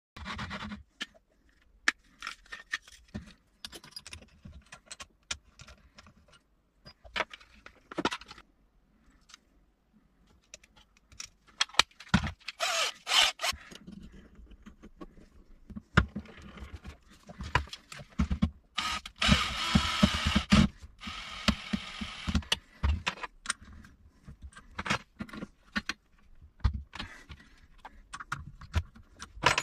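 Metal clinks, knocks and scrapes as a three-jaw lathe chuck and a twist drill bit are handled and fitted on a drill press. There are two spells of continuous scraping noise, a short one about 12 seconds in and a longer one of about three seconds near 19 seconds in.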